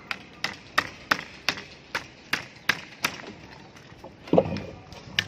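Hammer driving nails into wooden formwork boards: a quick run of about nine sharp strikes, nearly three a second, then a heavier thud and one more strike near the end.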